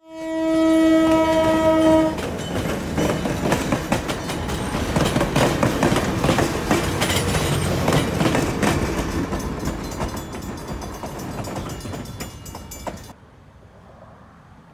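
Napa Valley Wine Train going by: the locomotive horn sounds one steady blast of about two seconds. Then the passenger cars roll past with a rapid clatter of wheels on the rails, fading as the train moves off and cutting off suddenly about thirteen seconds in.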